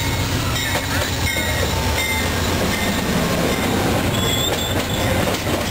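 Amtrak passenger train passing close by: the diesel locomotive's rumble and then its stainless-steel coaches rolling over the rails, steady and loud, with brief high-pitched wheel squeals.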